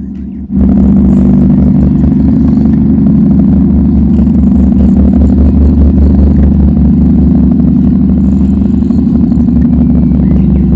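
Engine running at a steady idle close to the microphone, a loud low drone that cuts in abruptly about half a second in.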